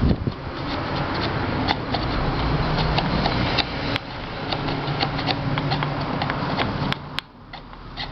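Steel hand file scraping back and forth along the aluminium rim of a pressure-cooker lid, a continuous gritty rasping with small clicks that stops about seven seconds in. The rim is being smoothed where it is chewed up, so the rubber gasket will seal.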